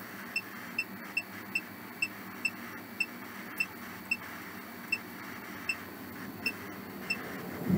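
Ghost-hunting app running a session: steady static hiss with short high beeps about twice a second.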